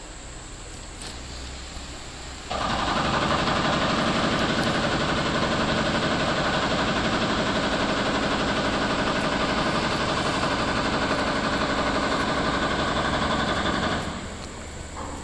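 Loud engine running steadily, with an even pitched drone. It begins abruptly about two and a half seconds in and drops away near the end.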